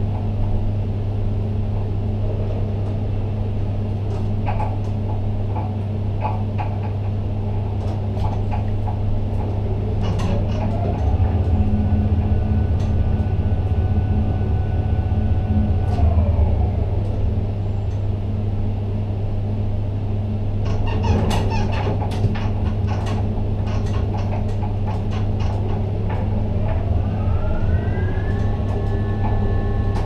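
Ship-to-shore container crane heard from the operator's cab: a steady low machinery hum, with the electric hoist drive whining up in pitch, holding and winding down twice as the spreader travels down into the ship's hold and back up. A run of clanks and clicks comes about two-thirds through, as the spreader sets down in the hold.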